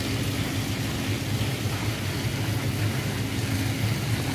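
A running engine's steady low drone, unchanging throughout.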